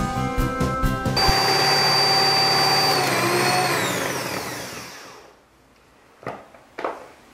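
Background music until about a second in, then an electric stand mixer running with a high whine as it beats cake batter. About three seconds in it is switched off and winds down, its whine falling in pitch and fading out. Two light knocks come near the end.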